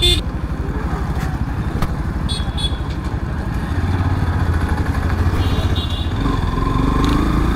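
Yamaha FZ-X's single-cylinder engine running steadily as the motorcycle rides along, heard from on board. The engine note grows heavier about four seconds in, and brief high-pitched tones sound twice.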